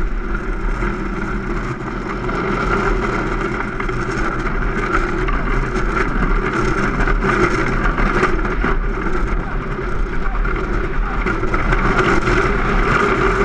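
Unpowered soap box cart running fast downhill on asphalt, heard from a camera mounted on the cart: a steady rush of wheels on the road and wind on the microphone, with scattered knocks from the frame, growing a little louder near the end.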